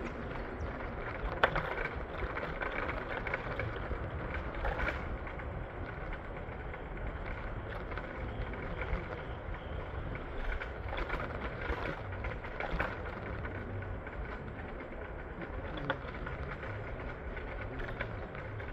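Steady rumble and rattle of a PATH train car in motion, with a few sharp clicks and knocks.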